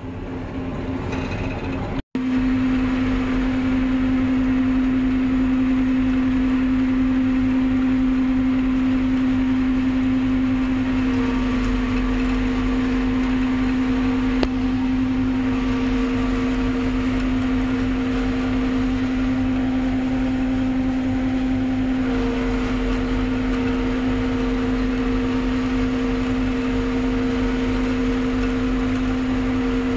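A tractor engine running steadily under load, driving a forage harvester that is chopping standing maize for silage: a steady machine hum. Heard from inside the tractor cab, with a momentary dropout about two seconds in.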